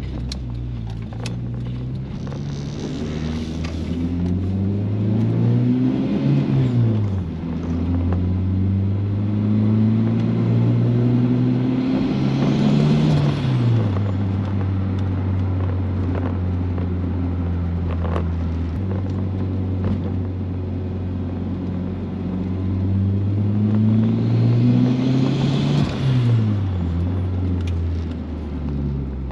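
Turbocharged 1.6-litre GA16 four-cylinder engine of a B13 Nissan Sentra, heard from inside the cabin, pulling through the gears on a still-untuned speed-density setup. Its pitch climbs and drops sharply at a gear change three times, with a steady cruise in the middle, and a hiss swells with each pull.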